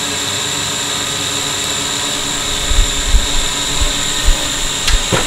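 Small drone hovering overhead, a steady propeller whine, with a few dull low thumps in the second half.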